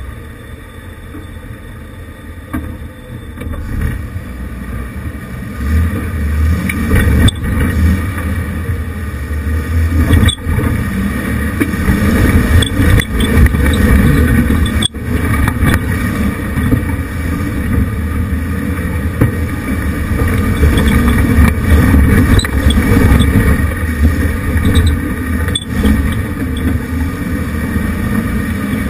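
1988 Jeep Wrangler YJ's engine running under load as it crawls up a rocky trail, getting louder about five seconds in and staying up. A few sharp knocks come through as it works over the rocks.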